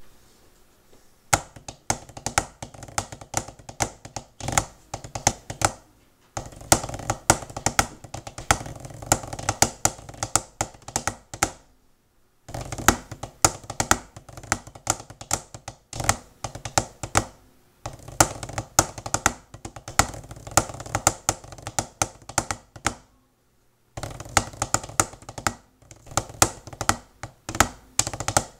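Drumsticks tapping out a drum score on a practice pad: quick, dry strokes and rolls in phrases of about five seconds, each phrase followed by a short pause.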